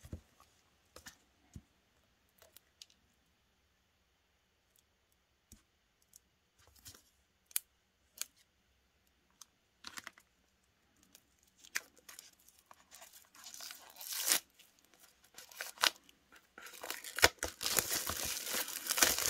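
Clear plastic wrapping being torn open and peeled off a new paperback notebook by hand: a few scattered taps and clicks at first, then crinkling and tearing that builds from about two-thirds of the way in and is loudest near the end.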